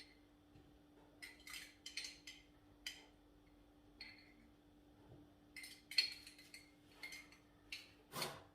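Spoon clinking and tapping against a glass jar and bowl as kalamata olives are scooped out: a dozen or so short, scattered clinks, the loudest about six seconds in and just before the end.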